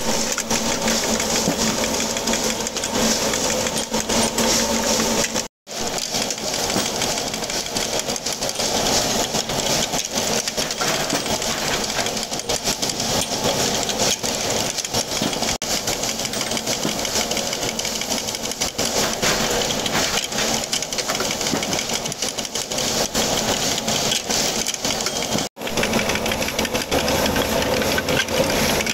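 Small motor-driven bolt-threading machine running, its spinning die head cutting threads onto steel coach-bolt blanks with a steady, rapid mechanical clatter. The sound cuts out for an instant about six seconds in and again near the end.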